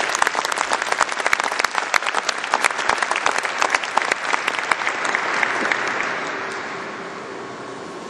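Audience applauding. The clapping thins about five seconds in and dies away by about seven seconds, leaving a steady faint background hum.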